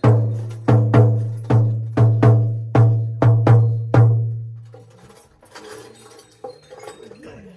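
A jhakri's large frame drum (dhyangro) beaten in a steady rhythm of about two to three strokes a second, each stroke ringing on with a low hum. The drumming stops a little after four seconds, leaving faint clinks and rustling.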